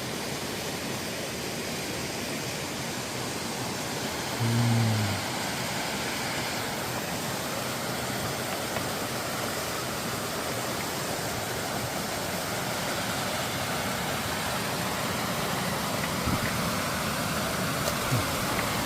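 Mountain stream and waterfall rushing steadily, with a brief low voice sound about four and a half seconds in.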